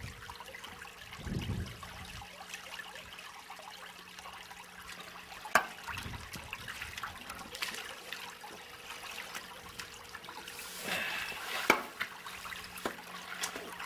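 Shallow creek water trickling and splashing as hands work in it at a pipe mouth, with two sharp clicks, one about halfway through and one near the end.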